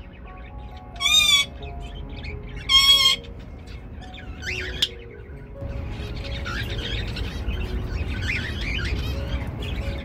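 Cockatiel whistling: two loud whistled calls with a wavering pitch, about a second and about three seconds in, then softer chattering chirps from about six seconds. Soft background music plays throughout.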